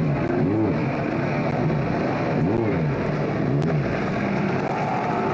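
Competition car's engine running hard, its pitch rising and falling several times as it revs and shifts through the gears.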